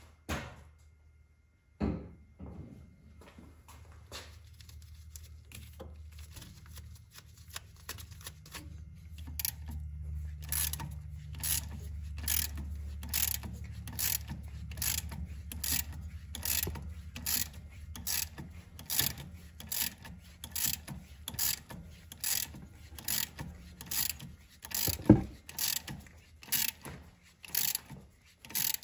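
Hand ratchet clicking in a steady rhythm, about three strokes every two seconds, as it turns the forcing screw of a puller drawing the harmonic balancer off an LS V8's crankshaft. A low hum runs under the first half, and one sharper knock stands out near the end.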